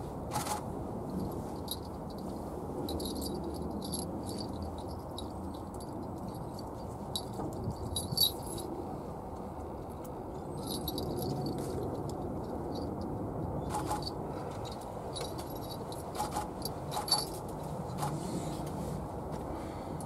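Outdoor background: a steady low rumble, with scattered faint, high clicks and tinkles, the sharpest about eight and seventeen seconds in.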